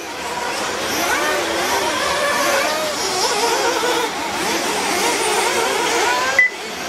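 Several 1/8-scale nitro off-road buggies' small two-stroke glow engines revving and backing off as they race, their pitches rising and falling constantly and overlapping. Near the end there is a short high beep, then a brief break in the sound.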